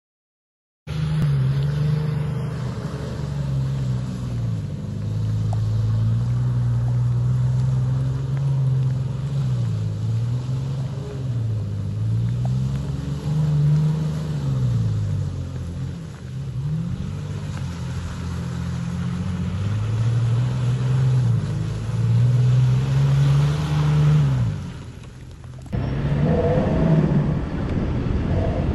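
Toyota FJ Cruiser's 4.0-litre V6 engine pulling under load, its pitch rising and falling again and again as the throttle is worked. About three seconds before the end it cuts abruptly to a rougher, noisier engine sound.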